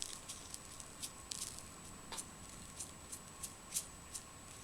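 Coloured salt being sprinkled by hand onto a glue-coated bottle, its grains landing in scattered small ticks and patters.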